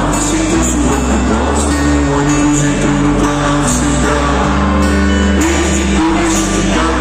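Live rock band playing, heard from the audience: electric and acoustic guitars, bass and drums, with a cymbal hit about once a second, and some singing.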